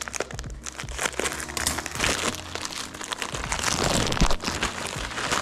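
Plastic MRE packaging crinkling and crackling in irregular bursts as it is handled and its contents are pulled out.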